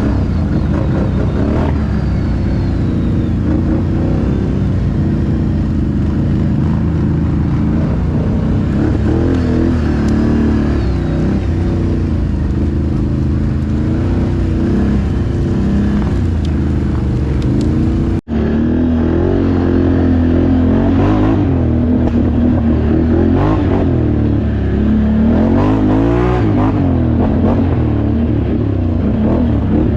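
Can-Am ATV V-twin engines running under way, the engine note rising and falling as the throttle is worked. A brief break about eighteen seconds in, after which the engine sound carries on.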